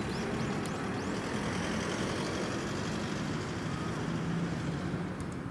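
Steady city street noise with road traffic, and a few faint high squeaks in the first second.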